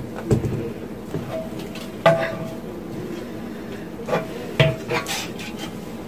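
Metal cookware clanking on the stovetop as a pan is moved aside: several sharp knocks, one about two seconds in and a cluster near the end, some leaving a brief metallic ring.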